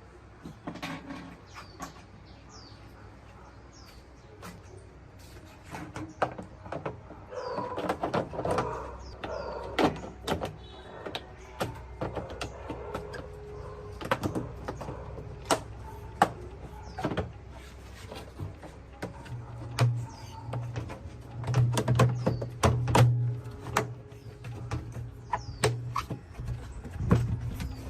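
Scattered knocks and clicks of hand tools and parts being handled during repair work, with birds chirping in the background. A low, uneven hum joins in about two-thirds of the way through.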